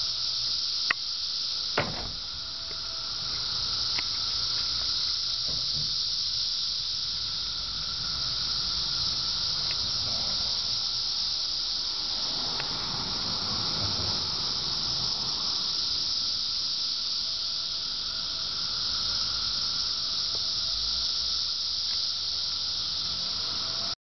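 Cicadas buzzing in a steady, high-pitched chorus that never lets up. Two short knocks come in the first two seconds.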